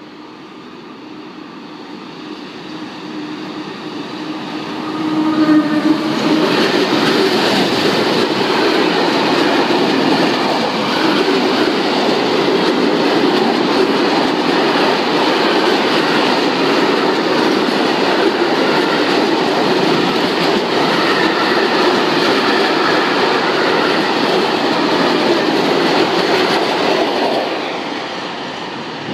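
SNCF BB 7200-class electric locomotive approaches, growing louder, and passes about six seconds in. Its freight train of bogie tarpaulin-covered wagons then runs by with a steady loud rumble and wheel clatter for about twenty seconds, fading as the last wagon goes by near the end.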